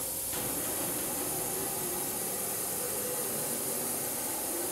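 Milltronics VM30 CNC vertical machining center running, its table traversing along the X axis: a steady hiss with a faint hum underneath.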